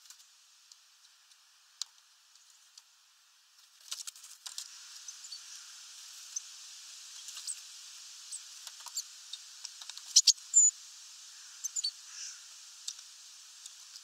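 Great tits pecking and hammering at sunflower seeds on a wooden feeder tray: irregular sharp taps and scratchy clicks. The tapping gets busier about four seconds in, with the loudest cluster and a short high note about ten seconds in.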